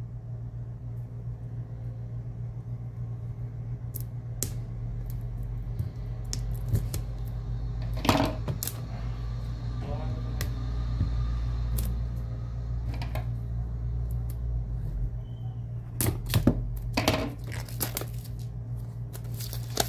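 Hands handling a shrink-wrapped cardboard box: scattered clicks, taps and crinkles as the plastic wrap is worked off, over a steady low hum.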